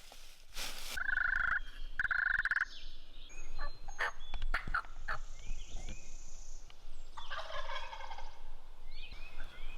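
Wild turkey gobbler gobbling at close range, more than once.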